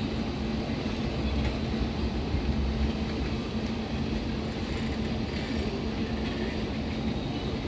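Passenger train moving slowly out of the station: a steady rumble of coaches rolling on the track, with a constant low hum.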